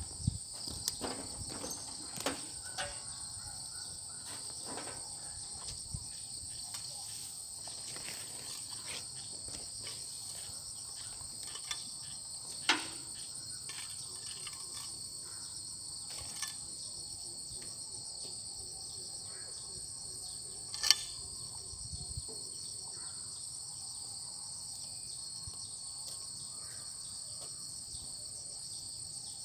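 Steady high-pitched buzz of an insect chorus at two pitches, with a few sharp clicks and knocks scattered through it, the loudest about 13 and 21 seconds in.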